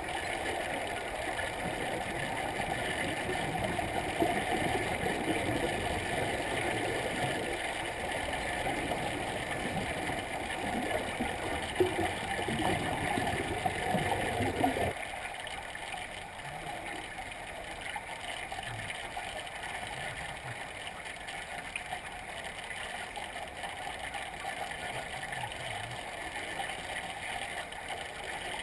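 Underwater pool noise: a steady rushing hiss with bubbling from scuba divers' exhaled air, with a few louder bubbling bursts. About fifteen seconds in it drops to a fainter, duller hiss.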